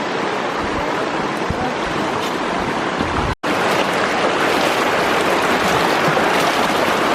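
Mountain stream water rushing over rocks, a steady rush. It drops out for an instant about three and a half seconds in and comes back a little louder.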